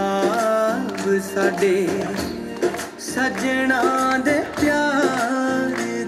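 Punjabi folk song playing over stage loudspeakers: a singer's voice with ornamented, gliding melody over a drum beat.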